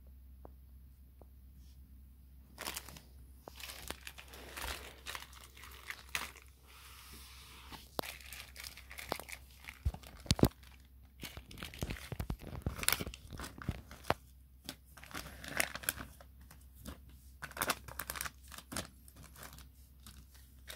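Packaging of a COVID rapid antigen test kit being handled: foil and paper wrappers crinkling and rustling in irregular bursts, with some tearing. It starts about two and a half seconds in.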